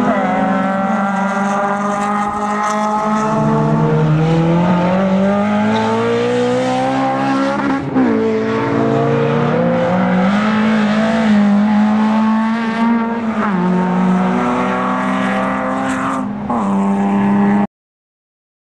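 Racing car engines at high revs, pitch climbing and dropping again and again as they are driven hard through corners and gear changes. The sound cuts off suddenly about a second before the end.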